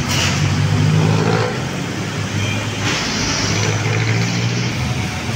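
Road traffic: a motor vehicle's engine running close by as a steady low hum over general street noise.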